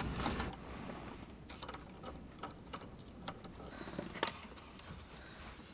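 Scattered faint metallic clicks and ticks of a hex key and small bolts as the upper stick of a short-throw shifter is bolted onto its lower portion with two Allen bolts and lock washers.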